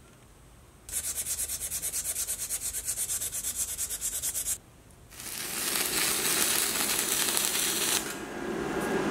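Fast, even back-and-forth rubbing strokes, about eight a second, as a steel shaft is scuffed by hand to key it for gluing. After a short pause comes a continuous scraping as two-part epoxy is mixed on paper with a stick, going a little softer near the end.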